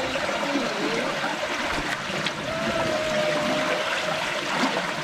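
Steady rush of shallow creek water running over rocks at a low-flowing waterfall.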